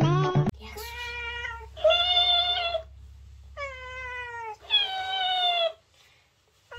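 Cat meowing: four long meows of about a second each, separated by short pauses.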